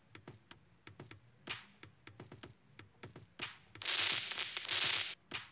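Keyboard-typing sound effect: a run of quick, uneven clicks as text types on screen. Then, about four seconds in, a louder hissing sparkle effect that lasts about a second.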